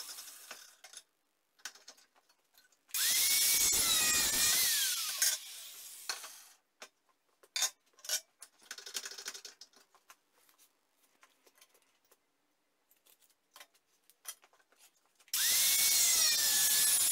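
Angle grinder with a thin cut-off disc cutting through a steel tube held in a vise: one burst of cutting a few seconds in lasting about two seconds, and another starting near the end, the whine rising as the disc spins up. In between, scattered knocks and clicks as the tube is handled and repositioned.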